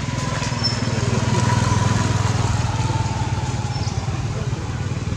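A motor vehicle's engine running close by, a low, steady pulsing hum that swells about two seconds in and then eases off.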